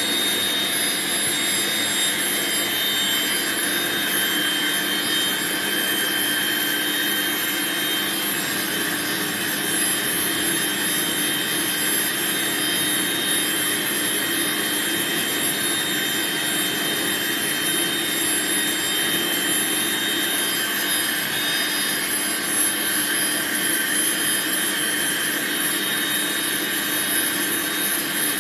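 Dog grooming dryer blowing steadily: a constant rush of air with a steady whine on top.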